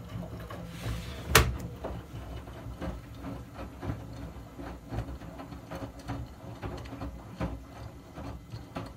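Miele Softtronic W 3100 front-loading washing machine washing: the drum turns with wet laundry and water inside, giving a low rumble with irregular soft knocks. A single sharp clack about a second and a half in is the loudest sound.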